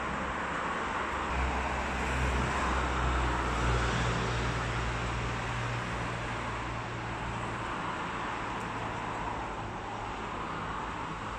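Road traffic noise heard from above. A vehicle's low engine hum swells about a second in and fades out by about seven seconds.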